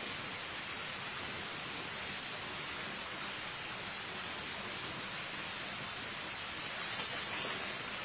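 A steady, even hiss, with a little crackling near the end.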